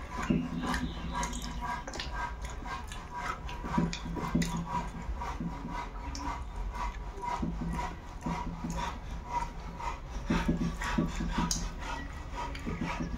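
A person chewing food eaten by hand, close to the microphone: a run of wet smacking clicks from the mouth, with brief low hums now and then.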